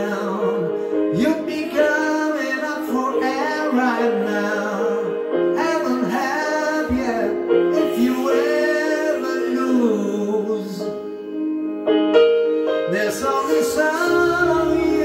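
A man singing into a handheld microphone over a backing track of sustained chords; a deep bass line comes in near the end.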